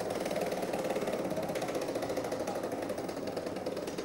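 Game-show prize wheel spinning, its flapper clicking rapidly against the pegs on the rim.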